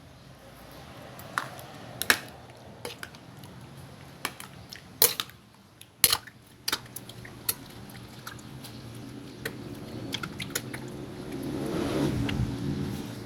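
Kitchen utensils clicking and knocking against a bowl many times at irregular intervals, with a wet stirring sound that swells near the end as raw fish is mixed with coconut milk for kinilaw.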